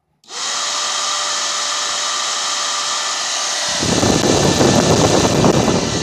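A 4-inch Attwood 12-volt in-line bilge blower switching on a quarter second in, spinning up within half a second and then running at full speed with a steady whir and hum. About four seconds in, a low rumble joins as its airflow buffets the microphone.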